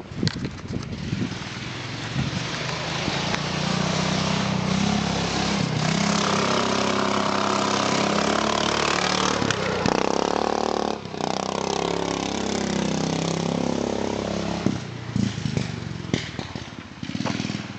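Racing lawn mower engine with cam and exhaust work, revved hard: the sound builds to a loud full-throttle run, then its pitch sweeps down about two-thirds of the way through. A few sharp knocks come near the start and near the end.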